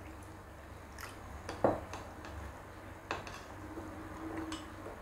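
Metal spoon stirring gelatin powder into water in a ceramic bowl, clinking against the bowl a few times, the loudest clink a little under two seconds in.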